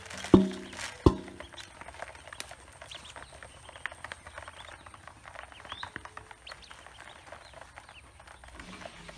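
Ducklings pecking at feed in a plastic basin: a rapid, irregular patter of bill clicks with faint high peeping. Two loud, short low calls sound in the first second and a half.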